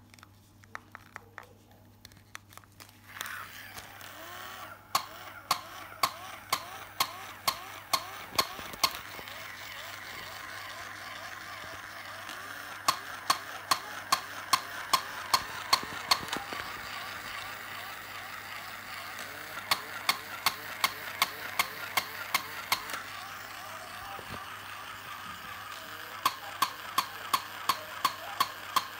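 Masudaya battery-operated barking plush dog toy running: a steady whirr of its small motor and gears starts about three seconds in, broken by four runs of short, sharp barks, about two a second. Before the motor starts there are a few light plastic clicks as the battery cover is shut.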